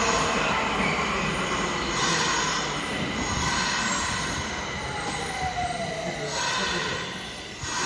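Nagoya Meijo Line subway train pulling into an underground station and braking to a stop, its whine falling in pitch as it slows over the rumble of wheels on rail. The noise eases off near the end as the train comes to a halt.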